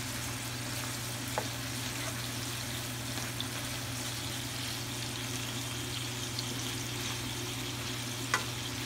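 Beef liver, onions and tomato sizzling in olive oil in a non-stick frying pan as they are stirred with a spatula, with two sharp taps of the spatula on the pan, about a second and a half in and near the end. A steady low hum runs underneath.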